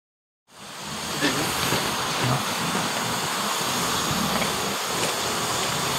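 Narrow-gauge steam locomotive standing with a steady hiss of steam, coming in about half a second in, with a few faint clicks over it.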